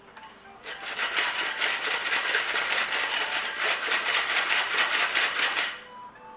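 Hand-cranked flour sifter being turned, its blades scraping quickly and rhythmically through the mesh as it sifts salt. The rasping starts under a second in and stops shortly before the end.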